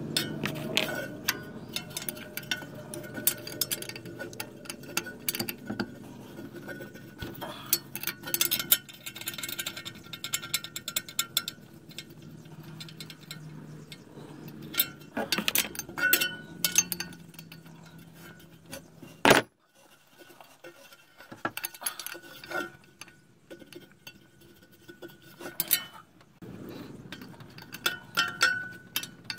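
A steel wrench clinking and ticking against the nuts on the studs that hold the clutch fan to the water pump pulley as they are worked loose. The clicks come at an irregular pace, with one louder metal knock about two-thirds of the way through.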